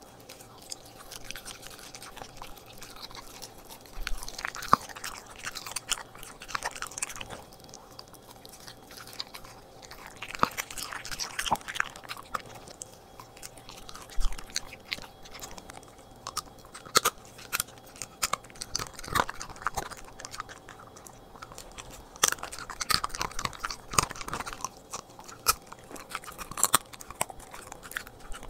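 Corgi chewing and biting raw meat: irregular wet chews and crunches, with sharp clicks coming in clusters, over a faint steady hum.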